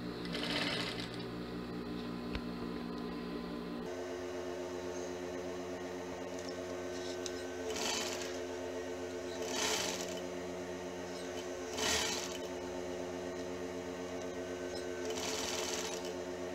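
Jontex industrial sewing machine with its motor humming steadily, and five short bursts of stitching as the fabric strip is sewn on under the presser foot.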